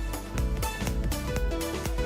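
Background music: an instrumental track with a steady beat and held notes.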